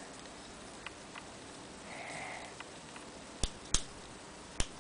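Quiet handling noise with no speech: a soft sniff about two seconds in, then four sharp clicks in two close pairs near the end as a pen and the camera are handled up against the microphone.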